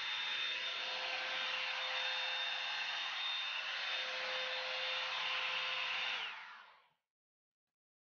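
Revlon One-Step hot-air brush dryer blowing steadily, a rushing air noise with a thin motor whine. About six seconds in the whine drops in pitch and the sound dies away as the dryer winds down and stops.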